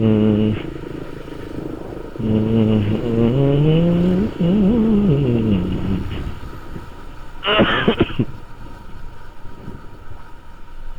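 Motorcycle engine running on the road, its pitch rising and falling as the throttle opens and closes, then settling quieter after about six seconds. A brief sharp burst comes about seven and a half seconds in.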